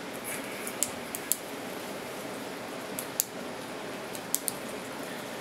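Several small, sharp clicks over a steady room hiss: a cluster about a second in, a pair near three seconds, and another pair past four seconds.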